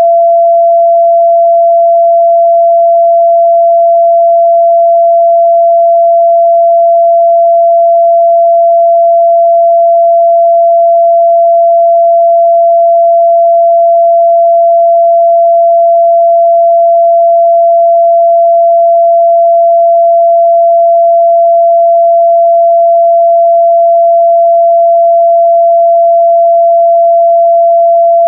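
Steady 678 Hz sine-wave test tone: one pure, constant mid-range pitch with no overtones, loud and unchanging.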